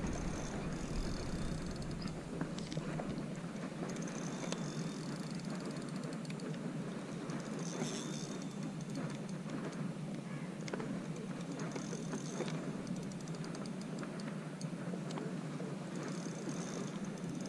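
Spinning reel being cranked to retrieve a lure: a steady whir of the reel's gears with faint rattling ticks.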